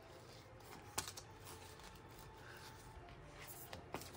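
Clear plastic sheets of letter stickers rustling and crinkling faintly as they are flipped through by hand, with a few sharp taps, the loudest about a second in and another near the end.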